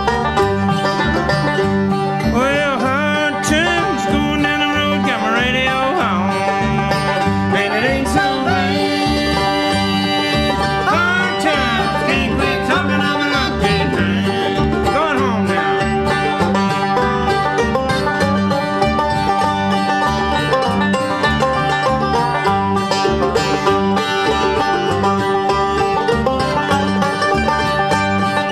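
Instrumental country-style music with plucked strings and a lead line that slides and bends between notes in several passages.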